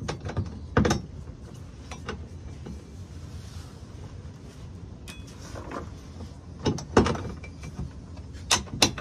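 Scattered sharp clicks and knocks of a metal side-step bracket and its bolts being handled and pulled off a van's underbody, with a cluster near the end.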